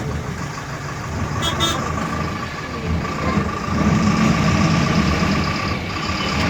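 An engine running steadily, louder in the second half, with a steady whine.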